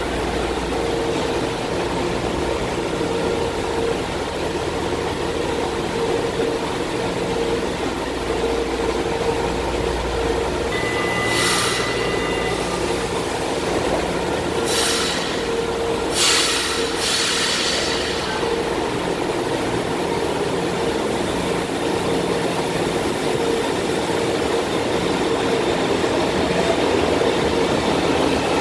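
São Paulo Metro Line 1 train standing at the platform with a steady electrical hum. Four short bursts of noise come between about 11 and 18 seconds, while the doors are opening. Near the end the sound grows louder as a train starts moving along the platform.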